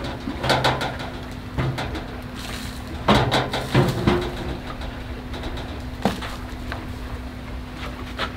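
Clanks and knocks of a stainless steel charcoal grill body being tipped and handled to dump out leftover ash. There is a dense cluster of knocks about three to four seconds in, then single knocks later.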